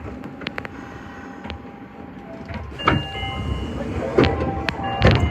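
Higashiyama Line 5050-series subway train running, with the motor drive's steady tones and scattered clicks. The rumble grows louder about three seconds in. Sharp knocks come near the three-, four- and five-second marks, the last the loudest.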